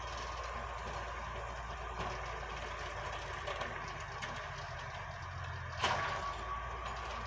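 Bucyrus dragline's engine and winches running steadily as the loaded drag bucket is hoisted, with one sharp metallic clank about six seconds in that rings briefly.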